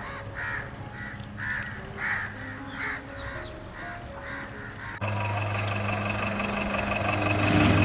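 A bird cawing over and over, about twice a second. About five seconds in, the sound cuts abruptly to a school bus engine idling, a steady hum with a thin constant whine.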